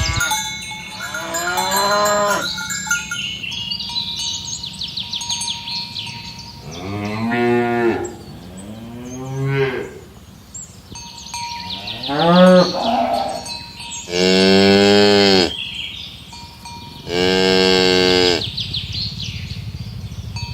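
Domestic cattle mooing: about six moos in turn, the two near the end longest and loudest. A light, bell-like tinkling comes in between the calls.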